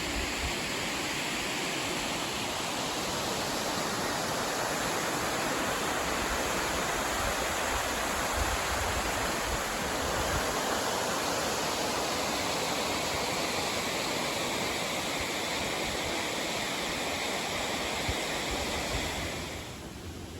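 Steady rush of a ribbon/cascade waterfall's falling water. It drops off sharply near the end.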